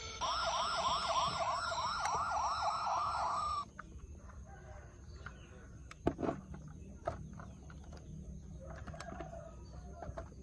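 Electronic siren of a toy police car, a fast rising warble repeating about three times a second, cutting off suddenly a few seconds in. Light clicks and knocks follow.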